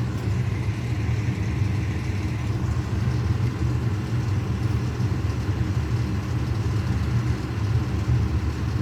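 A fire truck's engine idling with a steady low rumble.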